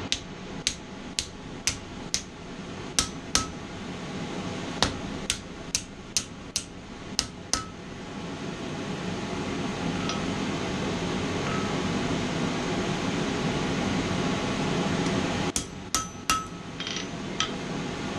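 Hand hammer blows on a hot mild-steel bracket, bending it toward 90 degrees: about fifteen strikes at a steady working pace, some with a short metallic ring, then a pause filled by a steady rushing background noise, then a quick flurry of blows near the end.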